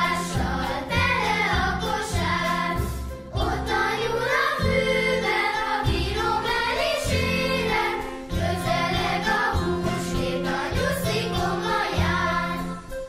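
Hungarian children's Easter song: a group of voices singing a melody over a steady, bouncing bass accompaniment.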